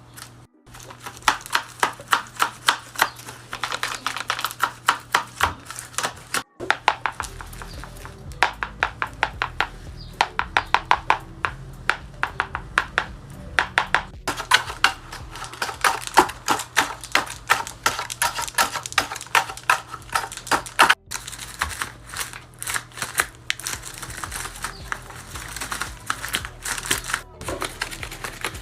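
Folded paper dragon puppet's jaws snapping open and shut over and over, a fast run of crisp paper clicks, several a second, broken by a few brief pauses.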